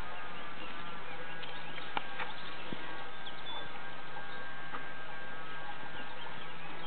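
A steady hum with several faint steady higher tones over it, brief high chirps and squeaks scattered through, and one sharp click about two seconds in.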